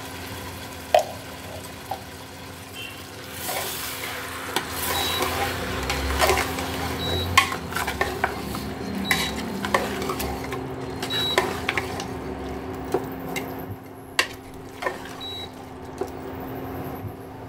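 Steel ladle stirring and scraping mutton and sliced onions around an aluminium pressure cooker, with irregular metal-on-metal clinks over the sizzle of the meat and onions frying on full flame. The stirring is busiest through the middle.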